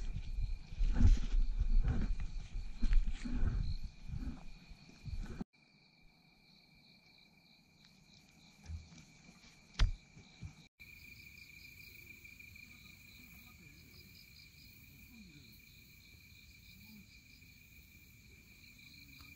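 Insects trilling steadily, a continuous high buzz. For the first five seconds or so a loud low rumble with knocks on the microphone covers it, and this cuts off abruptly.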